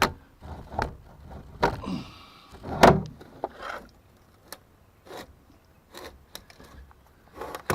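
A heavy battery being worked into a tight battery compartment on a Cat 248B skid steer: irregular knocks, clunks and scrapes against metal, with one loud thump about three seconds in and a sharp knock near the end.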